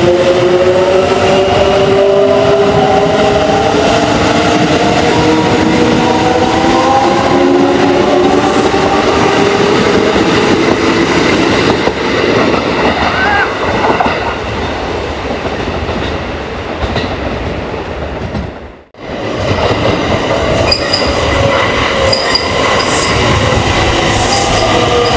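Kintetsu 3200 series electric train with its early Mitsubishi GTO-VVVF inverter, which gives out a whine of several tones at once over the running noise of the train. The whine fades about halfway through, leaving wheel and running rumble. After a brief break about 19 s in, the inverter whine comes back and climbs in pitch near the end as a train pulls away.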